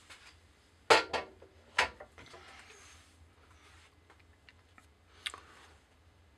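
A few sharp metallic knocks and clinks of tools being handled at a metal lathe: two loud ones about a second in and just before two seconds, and a lighter one past five seconds, over a faint low hum.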